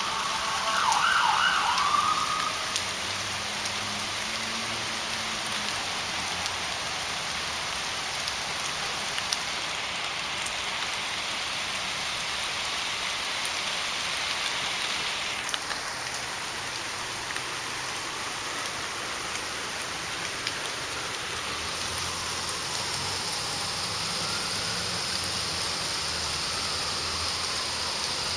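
Light rain falling steadily on a concrete patio. A wavering, wailing tone rises above it about a second in, and fainter slow rising and falling wails come and go in the second half.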